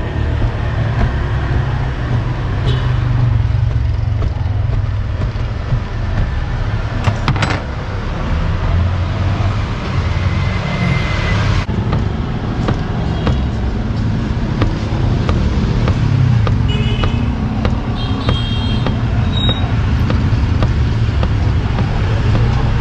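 Steady low rumble of passing street traffic, with faint light knocks of a knife blade cutting through dough onto a wooden board.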